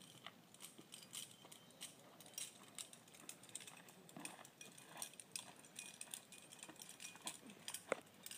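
Climbing gear clinking faintly: irregular small clicks and light metallic jingles, with one sharper click near the end.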